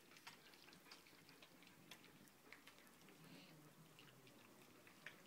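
Faint, irregular wet clicks and smacks of a litter of golden retriever puppies lapping puppy porridge from stainless steel bowls.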